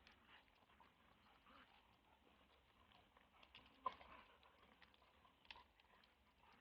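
Near silence, with a few faint short clicks, the loudest about four seconds in.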